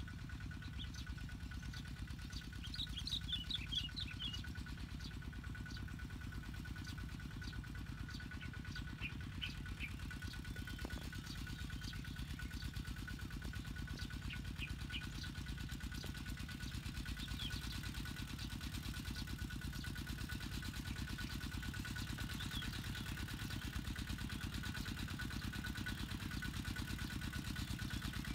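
Kubota tractor engine running steadily under work, with an even firing beat and a thin steady whine above it; a few short high chirps sound now and then.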